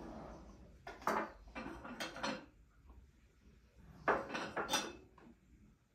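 Ceramic plates and cutlery clinking and knocking on a wooden table as slices of cake are served, in short clusters about a second in, around two seconds, and again around four seconds.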